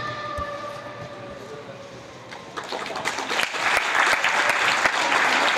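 Routine music fades out, then a hall audience breaks into applause about two and a half seconds in, the clapping quickly building and staying loud.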